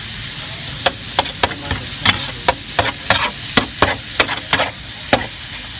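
Metal spatula scraping and clacking against a flat griddle as noodles, bean sprouts and chives are stir-fried, over a steady sizzle. The strikes start about a second in and come quickly and irregularly, about three a second, stopping near the end.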